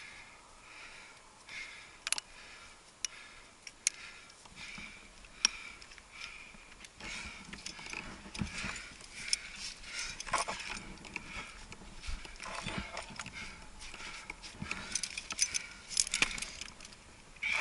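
Metal climbing gear clinking, with carabiners and cams on a rack knocking together in scattered sharp clicks, mixed with rope rustling and hands and clothing scuffing on granite as the climber moves up the crack. The clinking gets busier about halfway through.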